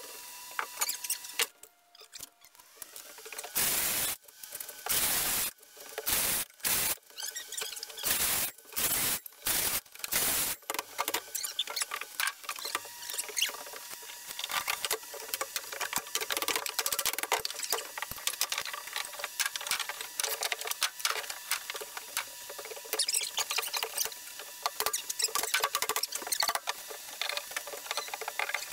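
Old subfloor being pried up with pry bars: a string of loud cracking and ripping bursts from a few seconds in, then a dense run of small creaks, squeaks and scrapes as boards and fasteners pull loose.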